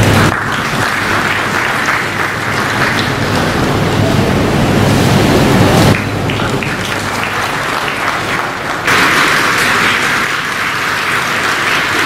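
Audience applauding, with sudden changes in level twice, about halfway through and again a few seconds later.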